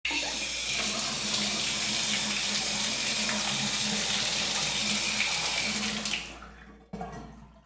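Shower spraying water in a steady hiss for about six seconds, then shutting off, with a brief sound about a second later.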